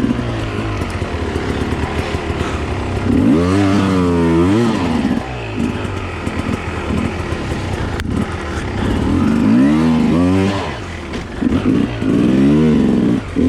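Enduro dirt bike engine heard from onboard, revving up and dropping back several times as the throttle is worked over rough ground, with a sharp knock about eight seconds in.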